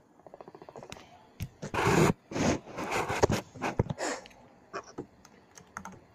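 Two small plastic spinning tops spinning on a wooden tray and knocking together: a fast run of small ticks at first, then harsh scraping bursts as they grind against each other, and scattered sharp clicks.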